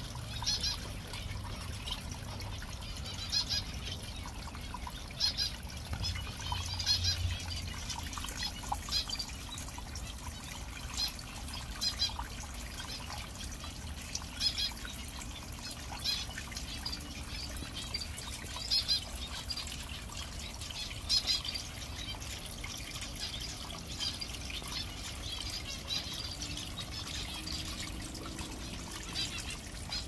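Water from a pondless waterfall trickling and splashing steadily over stacked rocks. Small birds give short, high chirps every second or two over the top.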